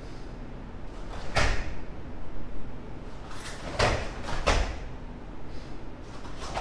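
Sharp cracks and thuds from a karate kata: the cotton gi snapping with fast strikes and bare feet hitting the foam mats. One comes about a second in, then a quick run of three in the middle.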